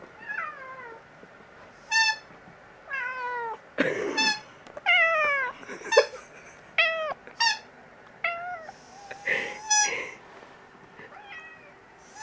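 Several short, flat-pitched squeaks from a squeaker, answered by a domestic cat meowing back again and again in short cries that fall in pitch.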